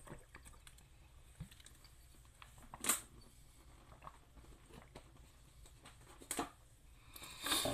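Quiet mouth sounds of someone drinking from a plastic water bottle and eating, with faint clicks of chewing and swallowing. Two short hissing noises come about three and six seconds in.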